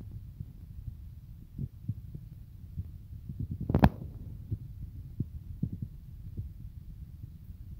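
Wind and handling noise on a handheld phone's microphone: a low rumble with soft thumps, and one sharp knock a little under four seconds in.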